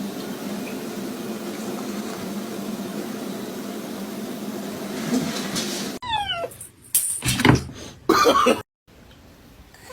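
A steady droning noise for about six seconds. Then it changes abruptly to a cat's short falling high calls, followed by two loud meows.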